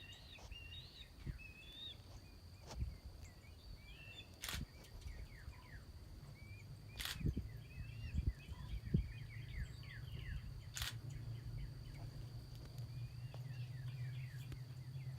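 Small birds chirping with many short, quick calls over a steady high whine. Three sharp clicks break in, and a steady low hum joins from about halfway through.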